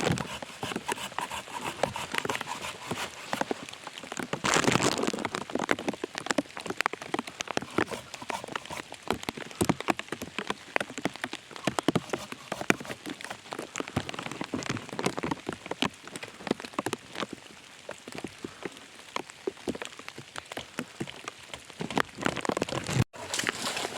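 Rain falling in the forest, a dense pattering of drops, with a brief louder rush about five seconds in.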